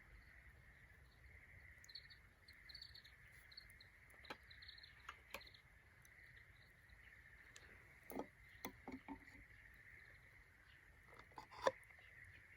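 Faint, scattered crackles and knocks from a small wood fire over a steady high drone, with a few brief high chirps in the first seconds; the sharpest crack comes near the end.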